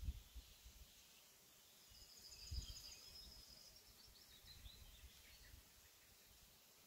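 Near silence: faint outdoor ambience, with a bird's faint chirping trills from about two seconds in and a few low rumbles near the start and about two and a half seconds in.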